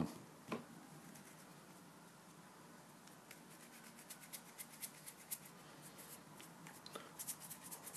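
Hands working play dough on a tiled surface: a soft thump about half a second in, then faint, quick clicks and taps from about three seconds in, coming thicker near the end.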